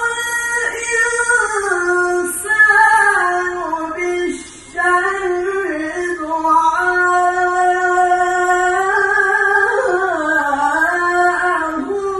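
A male qari reciting the Qur'an solo in melodic tilawah style: a high, unaccompanied voice holding long notes with ornamented turns, and a short breath about four seconds in.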